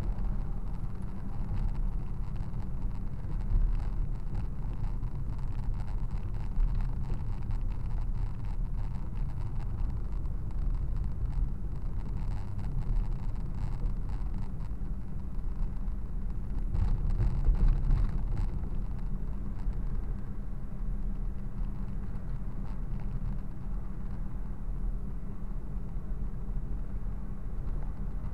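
A moving car's road and engine noise heard from inside the cabin: a steady low rumble, swelling louder for a second or so past the middle.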